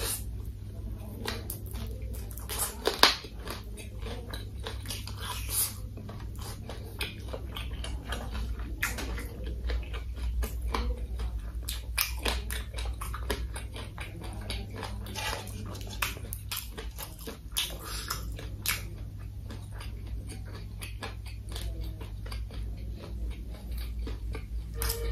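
Close-miked chewing and biting of crispy fried food, with many short crunches and crackles throughout and one sharp crunch about three seconds in.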